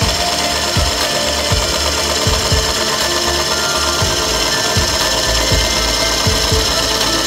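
Wood lathe turning a birch bowl blank while a turning tool cuts into the spinning wood: a continuous scraping, rasping cut over the lathe's running, with dull low knocks about once a second.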